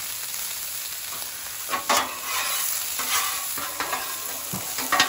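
Frozen peas and carrots sizzling in oil on a hot flat-top griddle, with a spatula and a bench scraper scraping across the griddle top as the vegetables are pushed into a pile. Several sharp scrapes stand out from the steady sizzle, the loudest about two seconds in and again near the end.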